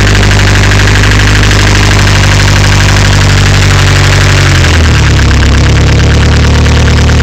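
Nissan CA18DET turbocharged 1.8-litre four-cylinder engine running at idle with a fast, even rattle over the engine note, a noise whose cause the owner can't find. The revs dip slightly about two-thirds of the way in.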